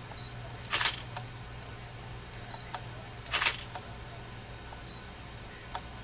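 Camera shutter firing twice, about two and a half seconds apart, each a short sharp snap followed by a lighter click, over a faint steady hum.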